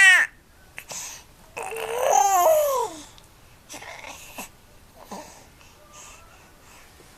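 A baby babbling and squealing: a high squeal cuts off just after the start, and a longer loud vocalisation about two seconds in rises and falls in pitch. Softer small sounds follow.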